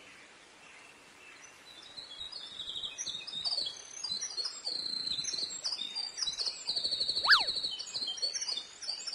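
Many small birds chirping and twittering, faint at first and growing fuller from about two seconds in. About seven seconds in, a quick high glide falls steeply in pitch, the loudest sound in the stretch.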